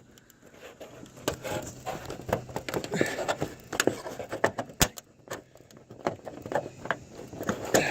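Irregular metallic clicks and scraping as a loose fastener hooked under a roof's drip edge is tugged at by hand against the metal gutter. It stays stuck.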